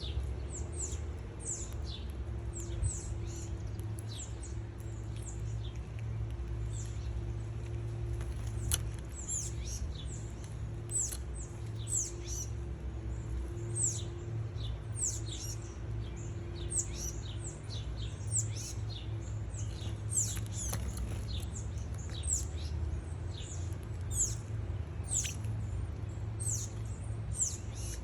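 Small birds chirping at a feeder: many short, high chirps that slide downward, several a second, overlapping throughout. A steady low rumble runs underneath.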